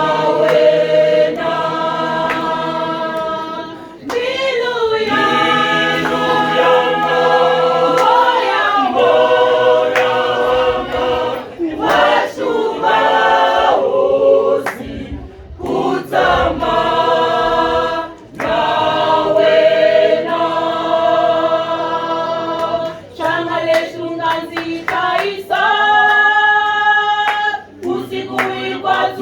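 Choir singing in several voice parts, holding sustained chords phrase by phrase with short breaks between phrases.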